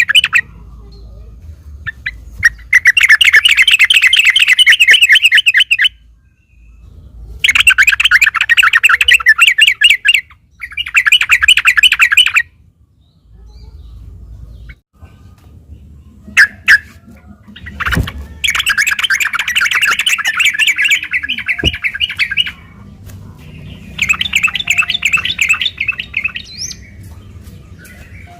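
Yellow-vented bulbul (trucukan) singing an agitated, fighting song in long, fast rolling phrases ("ropel"). It comes in five bursts of about two to four seconds with short pauses between, and there is a single sharp click about two-thirds of the way in.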